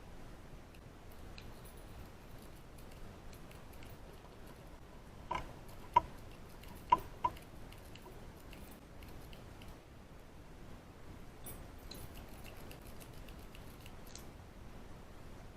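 A lock-pick rake scraping and ticking against the pins in the keyway of a Brinks 4-pin padlock, faint light clicks throughout, with a few sharper metallic clicks near the middle.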